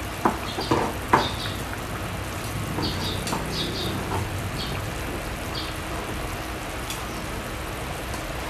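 Knife and fork knocking and scraping on a cutting board while shredding boiled chicken: three sharp knocks in the first second or so, then lighter scattered scrapes. Under it, a steady hiss from a pot of squash boiling on the stove.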